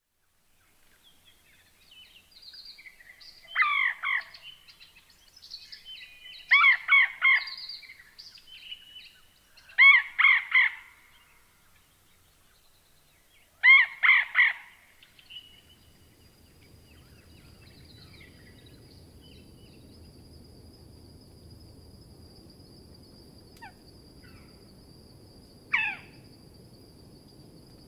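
Australian owlet-nightjar calling. It gives four short bursts of three or four rapid churring notes, about three seconds apart, then near the end one soft descending 'tyeow' note. From about halfway a steady high thin tone and a low hiss sit underneath.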